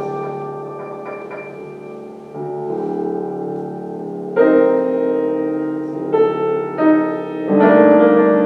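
Slow piano chords, each held and left to ring, with a new chord struck every second or two.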